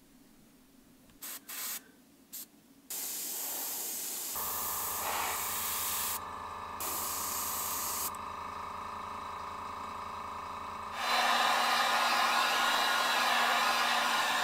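Airbrush spraying paint: a few short puffs, then a steady hiss, with a small air compressor's motor running underneath from about four seconds in. About eleven seconds in, a handheld hot-air dryer switches on, louder, drying the fresh paint.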